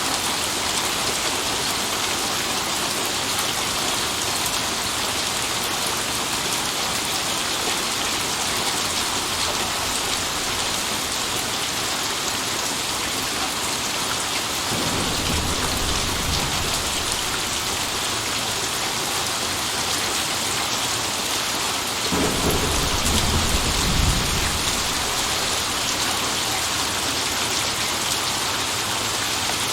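Steady rain hissing, with a low roll of thunder about halfway through and a second, louder roll a few seconds later.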